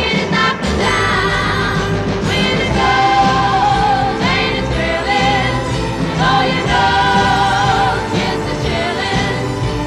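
Background music with a choir singing over instrumental backing.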